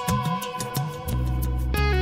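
Electric guitar played through two old Peavey 5150 valve amps with 6L6 valves, set on the edge of distortion and cleaned up with the guitar's volume knob: sustained held notes, with a deep low note coming in about a second in, over a steady ticking beat.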